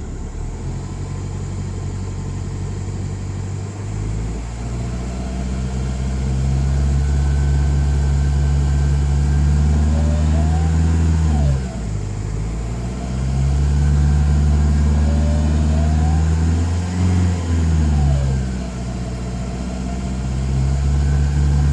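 MKIV Volkswagen 1.9 TDI (BEW) diesel engine running under load, with faint short rising whistles as boost builds, which the owner finds odd. The engine note drops sharply and picks up again twice, about halfway and near three quarters through.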